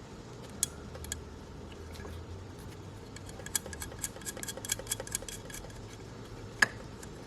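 Ratchet wrench clicking in short runs as a nut is tightened, with a quick flurry of ticks past the middle and one sharper click near the end.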